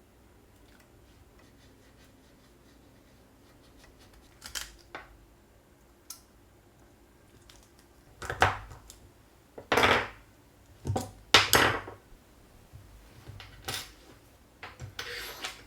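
Hand tools being worked on a Commodore 1084S monitor's switch during a repair: scattered small clicks, then several short, sharp scraping or cutting sounds about eight to twelve seconds in and again near the end.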